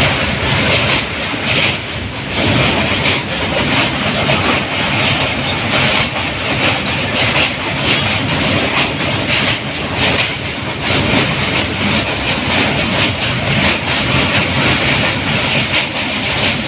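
Train carriage running across a steel truss railway bridge, heard from inside at the window: a loud, steady rumble with the clatter of wheels on the rails.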